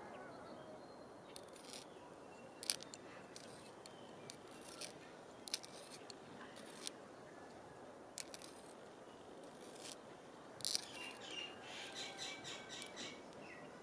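Small handheld pencil sharpener shaving the tip of a wooden pencil as it is turned by hand: faint, short scraping clicks at irregular intervals, with a quicker run of strokes near the end.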